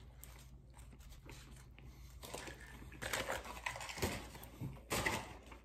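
Close-up eating: quiet chewing, then from about three seconds in a few loud rustling, crinkling noises of food packaging being handled.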